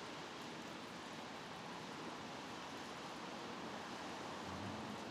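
Steady rain falling on the surrounding branches and foliage, an even hiss with no bird calls.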